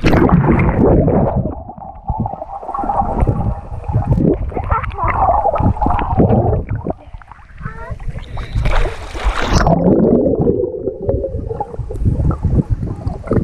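Water sloshing and gurgling against a waterproof action camera at a pool's surface, heard muffled and rumbling through the housing. Muffled, distorted voices come through now and then, most clearly past the middle.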